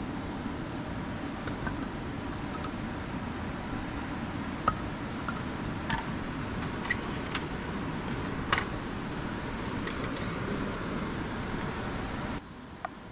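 Steady rushing of a river flowing past, with a few sharp light clinks scattered through it. The rushing drops off abruptly near the end.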